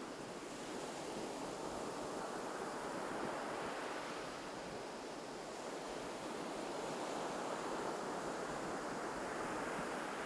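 Ocean surf washing onto a beach: a steady rush of breaking waves that swells and eases, rising twice.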